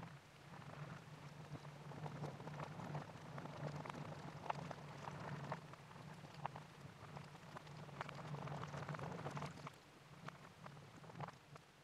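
Water beads (Orbeez) clicking and squelching as hands push and scoop them around a glass bowl in water, played in reverse: many small, irregular taps and wet clicks. A steady low hum runs underneath.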